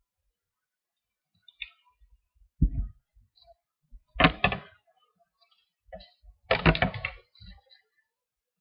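A dull thump, then two short bursts of knocking and rustling a couple of seconds apart.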